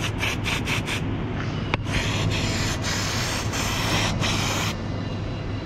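Aerosol can of penetrating spray hissing as it is squirted onto rusty exhaust bolts and rubber hangers to loosen them: a quick run of short squirts in the first second, then a longer spray of nearly three seconds with a couple of brief breaks.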